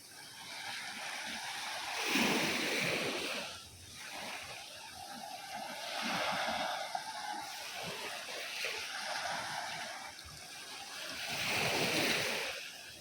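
Sea waves breaking and washing in. The rush swells and fades in surges, loudest about two seconds in, again around six seconds in, and near the end.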